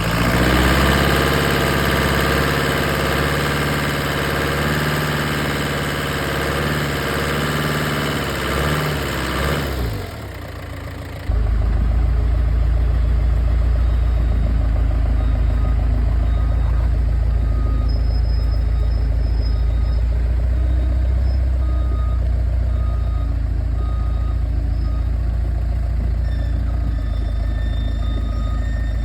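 Pettibone telehandler's engine running, with a wavering, hissy sound for about the first ten seconds. It drops briefly, then settles into a deep, steady idle.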